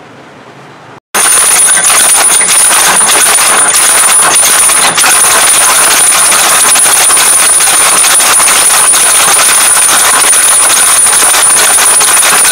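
Loud, steady machine noise with a constant high-pitched whine, starting abruptly about a second in and running without change.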